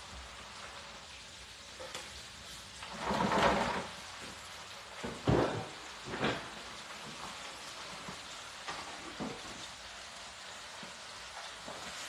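Floured chicken wings frying in a countertop deep fryer: a steady sizzle of hot oil, rising to a louder burst of sizzling about three seconds in. Two sharp knocks follow a couple of seconds later, with a few lighter clicks after them.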